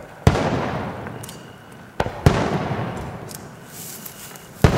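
Aerial firework shells bursting: three heavy bangs about two seconds apart, the middle one preceded by a sharper crack, each trailing off in a long fading echo.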